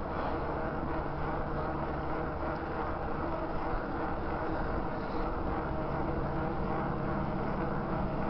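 Steady rush of wind over a handlebar-mounted camera's microphone, with tyre noise on asphalt, as a bicycle rolls downhill on a paved road.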